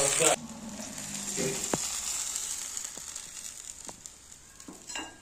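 A tadka sizzling in ghee and mustard oil in an iron kadhai as a metal spatula stirs it. The loud sizzle cuts off abruptly well under a second in, leaving a faint sizzle and a few light clicks and scrapes of the spatula as the tempering is scraped out onto the saag.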